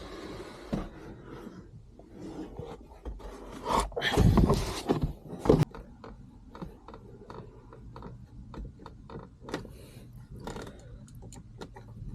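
Handling noise from the shifter assembly being put back together: parts scraping and rubbing, a louder scrape about four seconds in that ends in a sharp click, then light scattered clicks.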